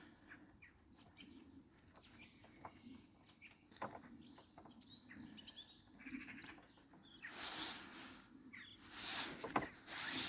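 Faint bird chirps in the background with a few small clicks, and two short bursts of noise about seven and a half and nine seconds in.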